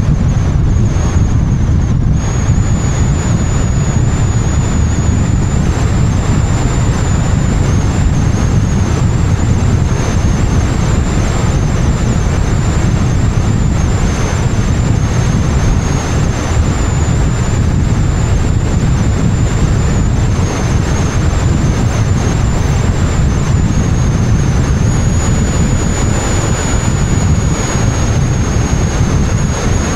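Wind buffeting the microphone of an action camera mounted on the outside of a moving car, with the car's tyre and road noise underneath. A thin high whistle wavers in pitch throughout.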